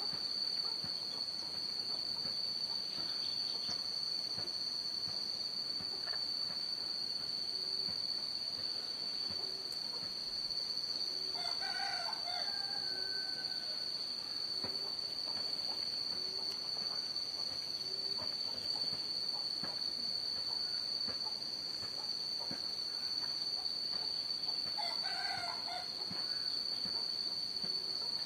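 A rooster crows twice, once near the middle and once near the end, over a steady high-pitched insect drone that runs throughout.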